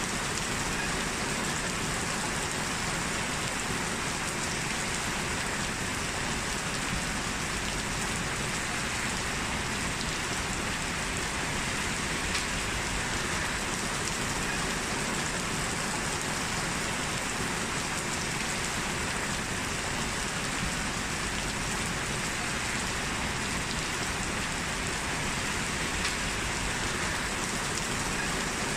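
Steady rainfall hitting surfaces, a continuous even patter with no thunder or other distinct events.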